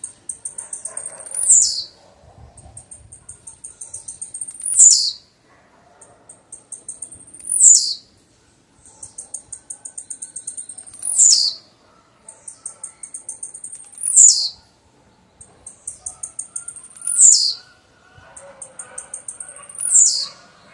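Blue-black grassquit (tiziu) singing its song over and over, seven times, about once every three seconds. Each song is a quick run of thin, high ticking notes followed by a loud, sharply falling note.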